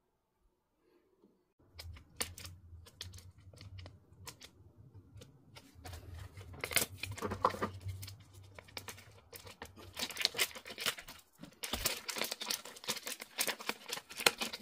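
A small packet of replacement rubber O-ring gaskets being handled and torn open by hand: crinkling and tearing that starts about two seconds in, with the loudest stretches in the middle and the last few seconds.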